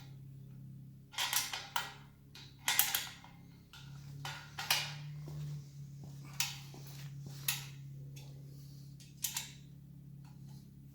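Metal hand tools clinking and clanking against the motorcycle's exhaust fittings as they are worked on, with about eight sharp clinks at irregular gaps, loudest in the first three seconds, over a steady low hum.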